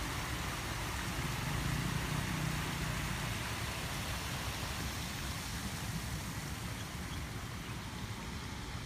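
Steady rushing hiss of outdoor noise with an uneven low rumble underneath, a little louder about two seconds in.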